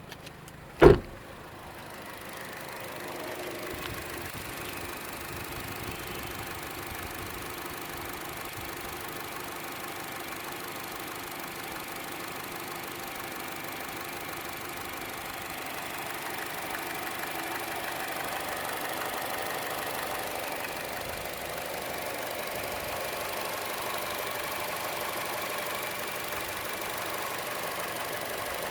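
Chevrolet Cruze engine idling with a ticking that is louder than the normal engine tick and most noticeable on the belt side; the owner does not know its cause. A single sharp knock about a second in is the loudest sound, and the engine sound grows somewhat louder later on.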